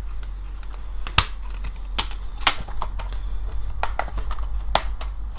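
Clear plastic Blu-ray cases being handled: about five sharp plastic clicks and snaps at uneven intervals as the cases are opened, closed and moved. A steady low hum runs underneath.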